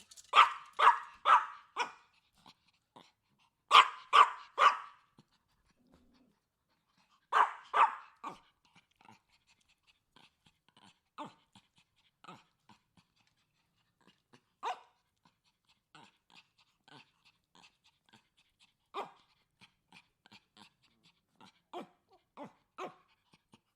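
Chihuahua barking at a bigger dog: quick volleys of sharp barks, four, then three, then two. After that come fainter scattered yaps with an occasional louder single bark.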